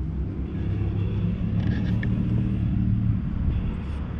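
Steady low rumble, with no clear rhythm or pitch change.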